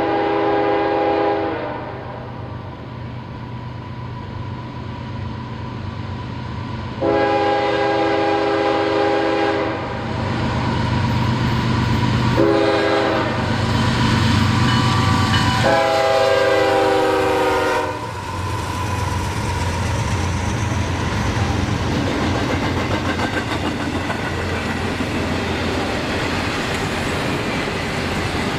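Locomotive air horn blowing the grade-crossing signal: two long blasts, a short one, then a long one. After the last blast, the train rolls past with a steady rumble and wheels clicking over the rail joints.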